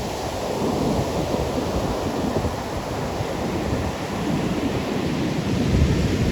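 Ocean surf washing onto a beach, a steady rushing noise, with wind rumbling on the microphone.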